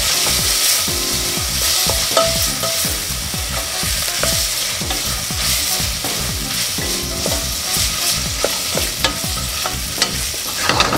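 Diced vegetables sizzling in oil in a stainless steel pot while being stirred with a wooden spatula. A steady frying hiss runs throughout, broken by scattered scrapes and light knocks of the spatula against the pot.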